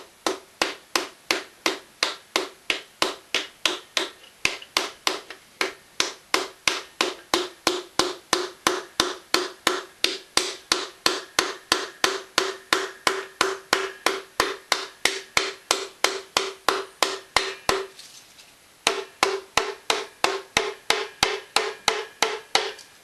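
Piston being driven into a small-block Chevy cylinder bore by tapping its crown with the wooden handle of a small mallet, at a steady rate of about three taps a second. Each tap rings with a clear musical tone. The tapping stops for about a second near the end, then picks up again for a last run.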